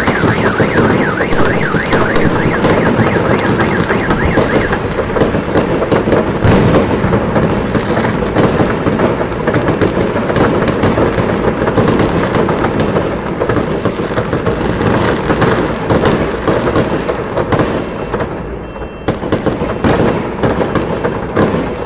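Fireworks going off: a dense, continuous run of bangs and crackles that thins out and fades near the end. For the first few seconds a warbling, siren-like wail sounds over it.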